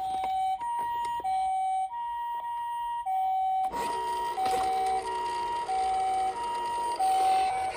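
Toy ambulance minicar's electronic two-tone siren, sounding the Japanese ambulance 'pee-poh': a high and a low tone alternating, each held a little over half a second. About halfway through, a rubbing, scraping noise joins in under the siren.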